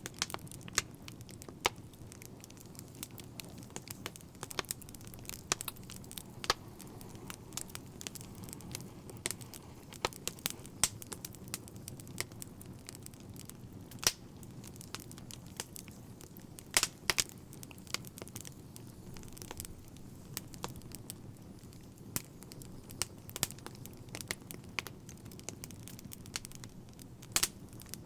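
Fire crackling: irregular sharp pops and snaps, some louder than others, over a low steady rumble.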